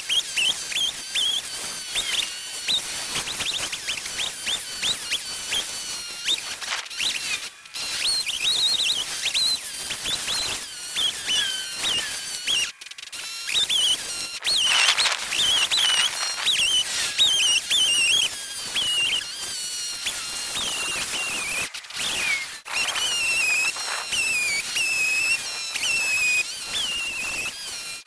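Homelite XL chainsaw cutting up a felled tree, heard as sped-up time-lapse audio: the engine's revving turns into a string of high, wavering squeals that rise and fall rapidly. The sound breaks off abruptly a few times, about 7, 13 and 22 seconds in.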